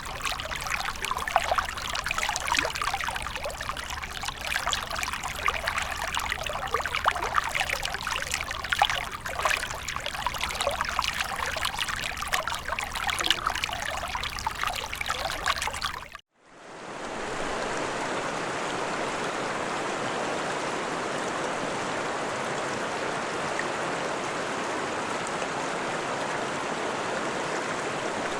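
Running water from two recordings. For about sixteen seconds, a trickling, babbling stream full of small splashes. It then cuts off abruptly, and after a brief gap a steady, even rush of flowing water fades in, like a river or waterfall.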